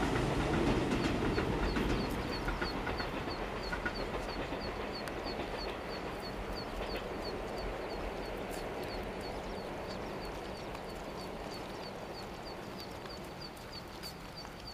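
Low rumble of a passing vehicle, fading away over several seconds, with a regular high-pitched chirping about three times a second above it.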